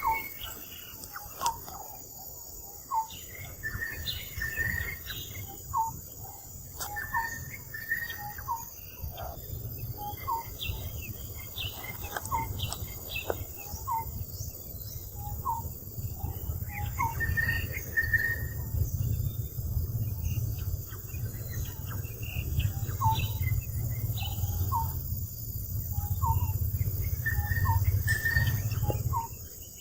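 Outdoor ambience of short, rising chirping calls repeated every second or so, over a steady high insect drone. A low rumble builds from a few seconds in and cuts off suddenly near the end.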